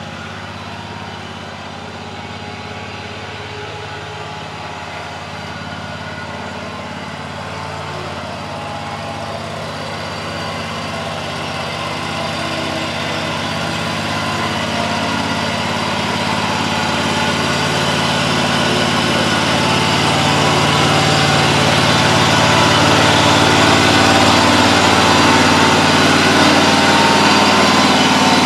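A riding lawn mower's engine running steadily, getting gradually louder over the stretch.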